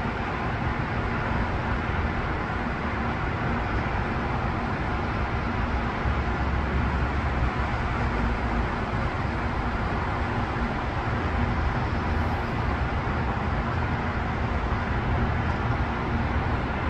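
Steady road-traffic noise from cars on a busy multi-lane expressway, an even rush with no single vehicle standing out.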